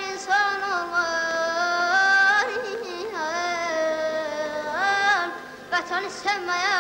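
A child singing Azerbaijani mugham: long held notes that step up and down, broken several times by quick ornamental throat trills (boğaz).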